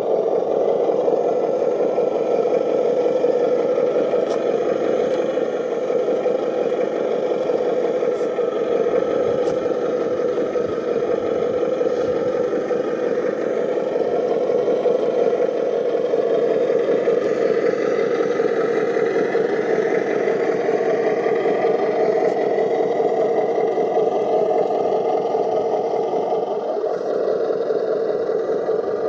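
Radio-controlled heavy construction vehicle running steadily, a continuous engine-like drone with some clatter and no clear changes in pace.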